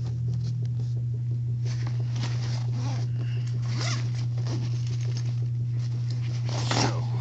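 Rustling and scraping as a fabric backpack and the supplies in it are handled close to the microphone, with a louder scrape near the end, over a steady low hum.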